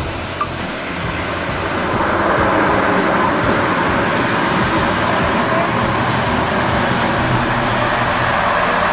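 Twin-engine turboprop plane's engines and propellers running as it rolls up the runway toward the listener, growing louder about two seconds in and then holding steady.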